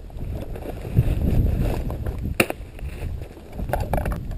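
Wind buffeting the microphone with a low rumble, over rustling and handling noises from a rucksack being unpacked, including one sharp click about halfway through.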